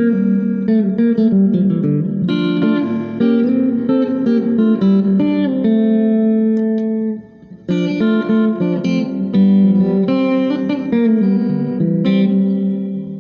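Electric guitar played through a MOWA GE100 effects processor over a wireless guitar transmitter and receiver into an amplifier. Picked notes and chords play with no hum or noise under them, with a short break about seven seconds in and a last chord ringing out and fading at the end.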